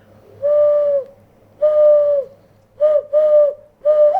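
A person imitating a bird call with a series of hooting notes: two long steady hoots, then three shorter ones. Each note dips in pitch as it ends, and the last turns into a warble near the end.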